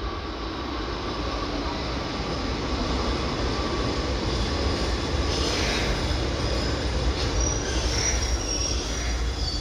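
Kotoden 1200 series electric train pulling into the platform, its running noise and low rumble growing louder as it comes in. From about five seconds in, high-pitched wheel squeals come and go as it slows.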